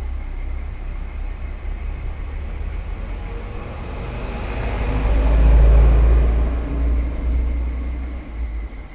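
Motor vehicle rumbling past, swelling to its loudest about five to six seconds in and then fading.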